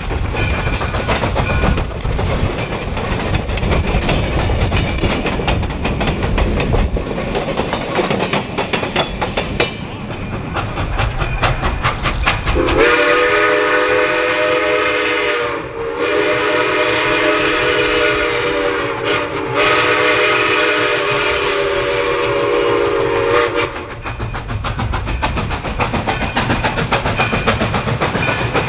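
Steam locomotive running along the track with a clattering rumble. About halfway through, its steam whistle sounds one long chord of several notes that lasts about eleven seconds and wavers twice.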